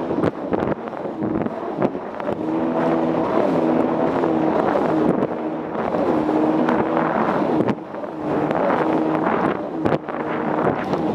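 Jet ski engine running, its note rising and falling with the throttle, over heavy wind buffeting on the microphone.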